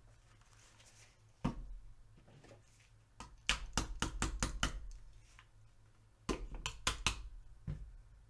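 Sharp metallic clicks and knocks from the parts of an Intratec Tec-9 pistol being handled and fitted together during reassembly. There is one click, then a quick run of about eight clicks, then another short run.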